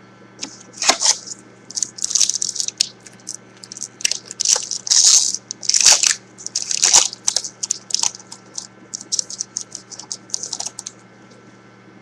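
Trading card pack wrapper crinkling and tearing as it is opened by hand, a rapid, irregular run of crackles that trails off near the end.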